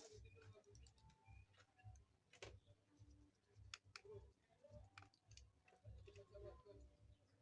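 Near silence with a low hum and a few faint, scattered clicks.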